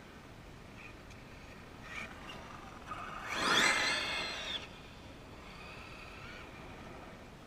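Traxxas E-Revo RC monster truck with a Mamba brushless motor driving past at speed: a high electric motor whine and tyre noise on rough asphalt swell as it nears, peak about three and a half seconds in, and the whine drops in pitch as it passes and fades within about a second.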